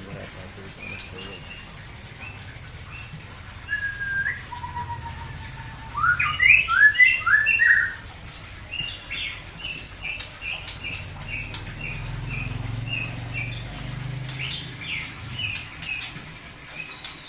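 White-rumped shamas (murai batu) singing in their cages: strings of short, sharp chirps and whistled notes, two long level whistles about four seconds in, and a loud burst of rapid song about six seconds in.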